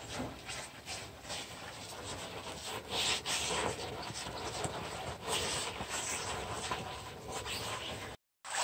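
Wet cloth being worked by rubber-gloved hands in a bowl of dye standing in a tank of water: soft sloshing and squelching that swells several times, with a brief dropout near the end.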